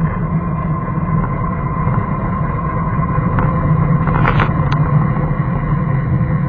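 Vehicle engine running steadily with road noise as it drives along, with a few short clicks a little past the middle.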